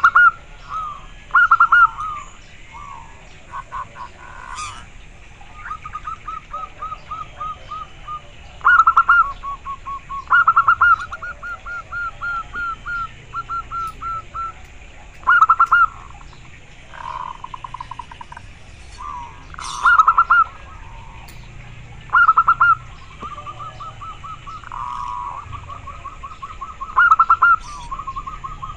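Local zebra dove (perkutut) cooing. It repeats phrases of quick staccato notes: some short and loud, others long, softer trains of rapid notes.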